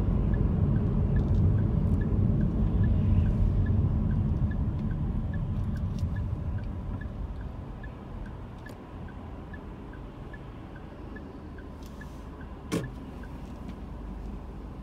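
Car cabin road noise, tyres and engine, dying away as the car slows to a stop. A light regular ticking, about three a second, runs through it, and a single sharp knock comes near the end.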